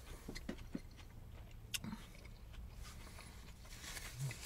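Faint chewing of a mouthful of sub sandwich: a few soft mouth clicks and smacks, mostly in the first two seconds.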